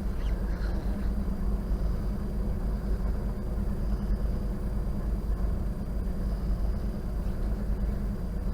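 Steady low rumble of road traffic crossing the bridge overhead, with no distinct events.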